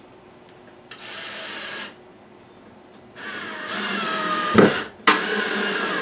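Cordless drill-driver driving a screw into plywood. A short spin comes about a second in, then a longer run from about three seconds in whose pitch drops as the screw bites. Two sharp, loud knocks come near the end.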